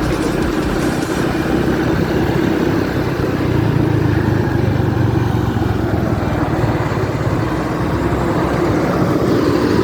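Honda Pop 110 motorcycle's small single-cylinder engine running steadily under way, with road and wind noise; the engine has a freshly replaced camshaft bearing.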